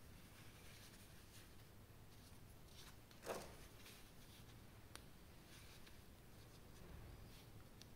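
Near silence with faint handling noises: a brief rustle about three seconds in and a light click a couple of seconds later.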